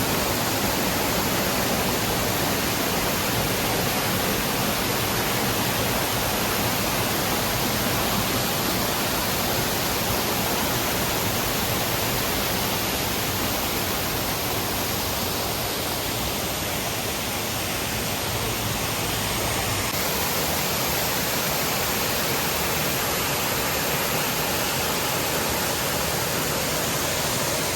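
Waterfall rushing steadily, an even hiss of falling water; the low rumble thins about twenty seconds in.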